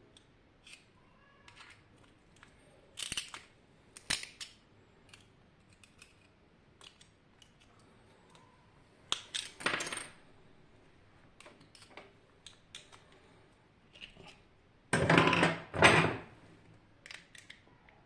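Small metal parts and tools clinking and clattering as a water heater is taken apart by hand: scattered light clicks, with louder clanks and scrapes about three and four seconds in, around nine to ten seconds, and the loudest pair near the end.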